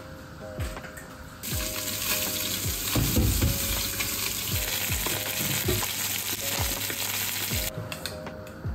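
Food frying and sizzling in a hot pan. The sizzle starts abruptly about a second and a half in and cuts off suddenly near the end, with faint background music underneath.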